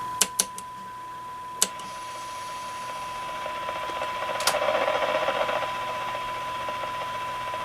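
Kenwood TM-621A's speaker playing a steady 1 kHz test tone from a signal generator, with receiver hiss building behind it as the generator level is turned down toward the radio's sensitivity limit, about −118 dBm. A few sharp clicks near the start and one about four and a half seconds in.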